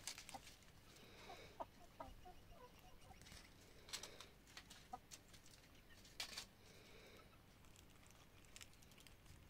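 Faint, soft clucking from chickens: a short run of brief low notes between about one and three seconds in, with a few sharp clicks later.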